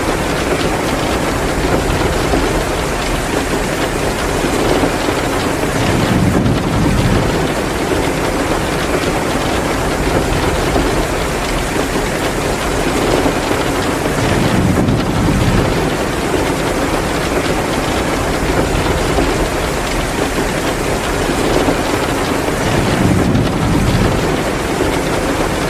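Heavy rain pouring steadily, a dense, even hiss, with a low rumbling swell about every eight to nine seconds.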